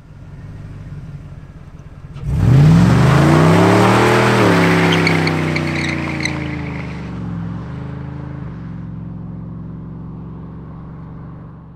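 Pickup truck engine revving hard in a burnout, its rear tires spinning and squealing on the asphalt. The revs climb for about two seconds, then the tire noise stops and the engine note settles and fades as the truck pulls away.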